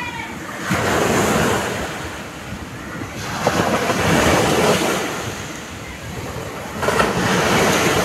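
Sea waves breaking on a beach and washing up the shore, with three surges: about a second in, at about three seconds, and just before the end.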